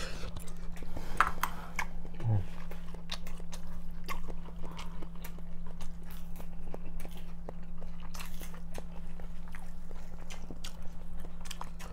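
A person chewing and eating with a spoon and chopsticks, with many small clicks of mouth and utensils, over a steady low hum.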